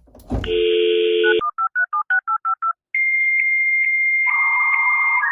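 Telephone dial tone for about a second, then a quick run of about eight touch-tone keypad beeps, then a dial-up modem's connection: a steady high answer tone, joined by a lower hissing tone about four seconds in, as the call goes through a phone line to the internet.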